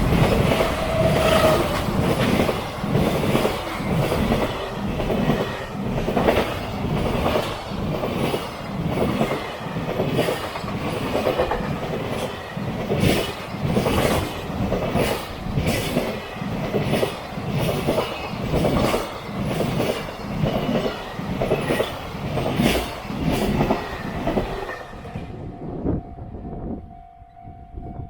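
Train passing close by over a railway level crossing, its wheels clacking over the rail joints about once a second, until the sound drops away abruptly some 25 seconds in as the last car clears. A faint steady tone lingers for a few seconds after.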